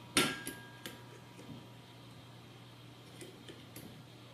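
Metal clicks and taps of a brass spacer and nut being tightened by hand on a steel robot chassis: one sharp click just after the start, two lighter ones within the first second, then a few faint ticks, over a low steady hum.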